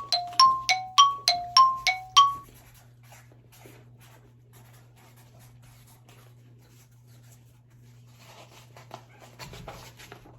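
Electronic two-note chime repeating quickly, a lower and a higher tone in turn about three times a second, which stops about two seconds in. Faint clicks and rustling follow.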